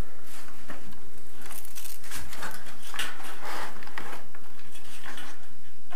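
Handling noise: irregular scraping and rustling as a steel tape measure is drawn out along a metal drywall profile lying on a cardboard-covered floor, in a string of short uneven strokes.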